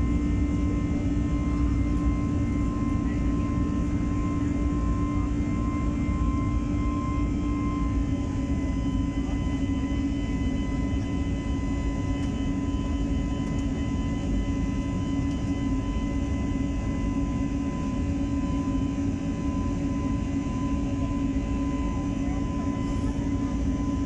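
Jet airliner engines heard from inside the passenger cabin during the climb after takeoff: a loud, steady rush with a steady hum and whine, whose tones shift slightly about eight seconds in.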